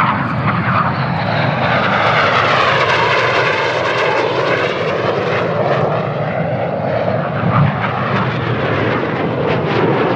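Red Arrows BAE Hawk jets flying past, a loud, steady jet-engine noise whose whine sweeps down in pitch and back up as the aircraft pass.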